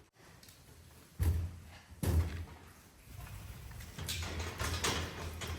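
Two heavy thuds about a second apart, followed by a run of lighter, irregular knocking and scuffling.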